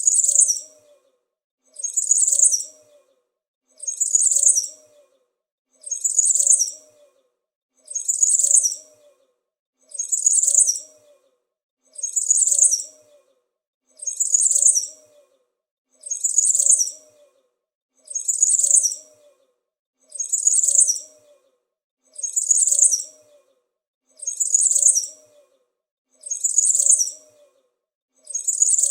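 A small bird's high chirping, one short burst of chirps lasting under a second, repeated identically about every two seconds as a looped sound effect.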